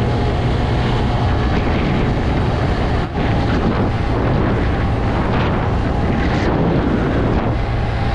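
Motorcycle riding at speed: wind rushing over the microphone with the engine's steady running underneath, with one short dip in the noise about three seconds in.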